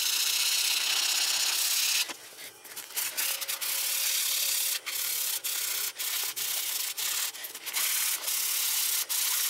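Ordinary dry sandpaper rubbed by hand along a rusty Suzuki Let's 4 scooter axle shaft to take off surface rust: a steady scratching hiss. One long stroke runs for about two seconds, then quicker strokes follow with short breaks between them.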